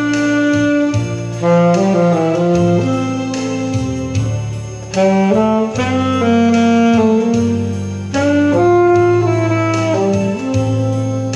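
Saxophone playing a slow melody of held, sustained notes over a steady low accompaniment.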